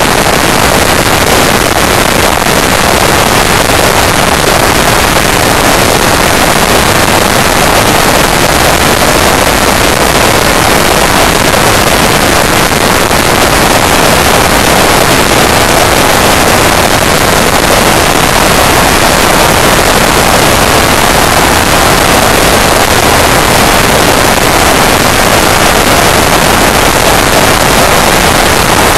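Loud, steady rush of wind and road noise on the microphone of a camera riding on a Honda Deauville NT650V motorcycle at motorway speed, an even hiss with no engine note picked out.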